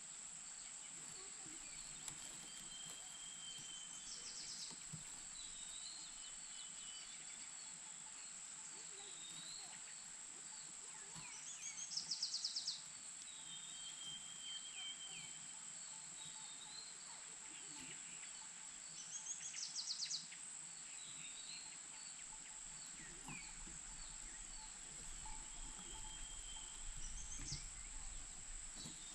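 Steady high insect drone with birds chirping. A loud, rapid trilled call repeats about every seven or eight seconds and is loudest about 12 and 20 seconds in.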